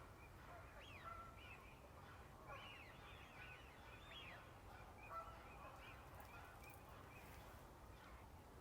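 A flock of wild waterfowl, geese and ducks, calling faintly: many short overlapping honks and calls, busiest in the middle, over a low steady rumble.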